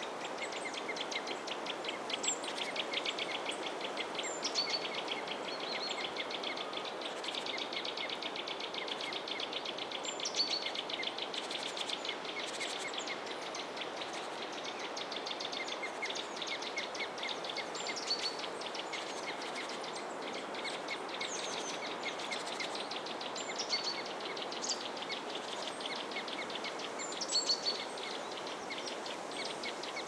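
Forest ambience. Birds give short, high chirps every second or two over a steady rush of background noise and a fast pulsing trill that is strongest in the first half.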